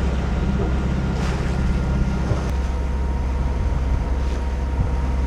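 A sailboat's engine running steadily as the boat motors along, with water and wind rushing past; the low hum shifts about halfway through.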